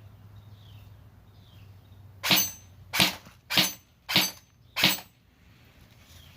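Airsoft M4 rifle firing five single shots in quick succession, about 0.6 s apart, each a sharp crack.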